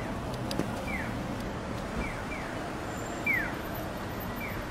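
Bird chirping in short, sharply falling calls at irregular intervals, the loudest a little past the middle, over a steady hum of street traffic.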